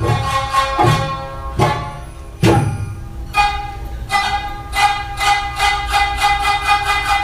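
Instrumental music: a few sharp drum strikes in the first three seconds, then a quick run of plucked string notes over a held tone.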